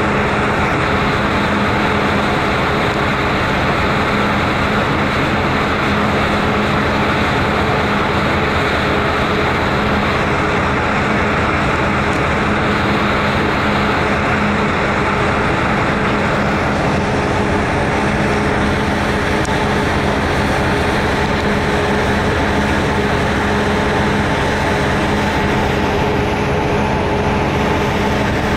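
Car ferry's engines running under way: a steady drone of several low hum tones over a constant rushing noise, which eases slightly in the upper range about two-thirds of the way through.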